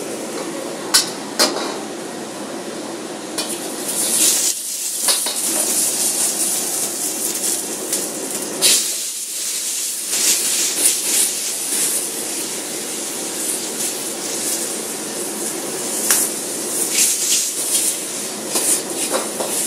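Stir-frying in a wok over a gas burner: a metal ladle clanging and scraping against the wok again and again, with loud surges of sizzling as food hits the hot pan about four and nine seconds in, over a steady low rushing noise.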